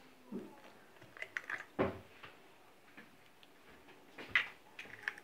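Hen's eggs being handled: a few light clicks and taps of eggshell, the loudest nearly two seconds in, then a couple more near the end.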